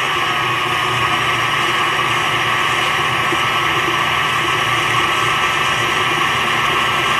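A 325-watt tilt-head stand mixer running at a steady speed, creaming butter, sugar and lemon zest in a glass bowl. It gives a constant motor whine over a low hum.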